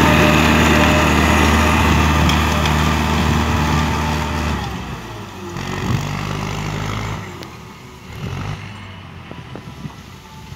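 Tractor diesel engine running steadily under load while pulling a disc harrow through soil. It is loud and close at first. After about four and a half seconds it becomes fainter and more distant, with a single sharp knock near the middle.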